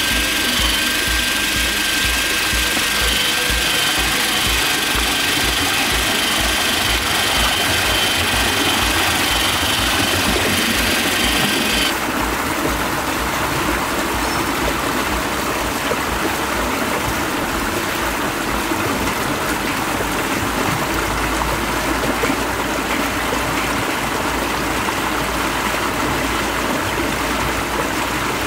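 Water rushing through a miniature concrete model dam's sluice and over its spillway, a steady splashing noise. For about the first twelve seconds steady high-pitched tones sit over it, then cut off suddenly.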